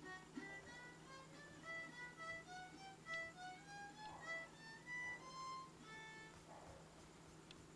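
Faint background music: a melody of short pitched notes, with a steady low hum underneath.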